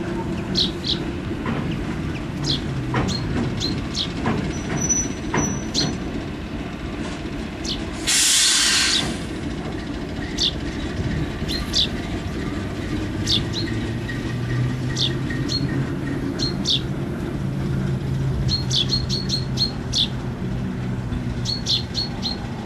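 Class 08 diesel shunter's engine running steadily as the locomotive moves slowly along the track, with a loud hiss lasting about a second about eight seconds in. Birds chirp throughout.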